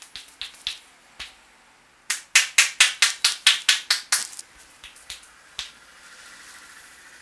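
Percussive hand strikes of an Indian head massage. A few light taps come first, then a burst of about ten sharp, loud strikes at about five a second, then a few faint taps.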